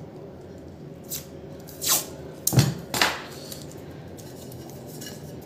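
Masking tape pulled off its roll and torn in a few short rips, then pressed down onto a subwoofer's magnet.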